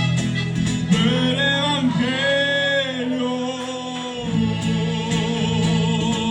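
Live music: a man singing long held notes with vibrato over sustained instrumental chords and bass.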